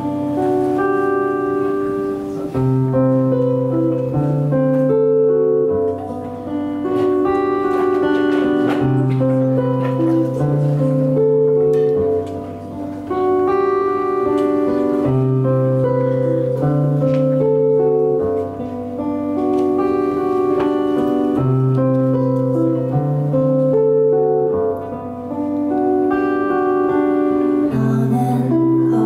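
Steel-string acoustic guitar played solo in an instrumental passage of a song, picking a repeating chord progression whose bass notes change every couple of seconds and come round again about every six seconds.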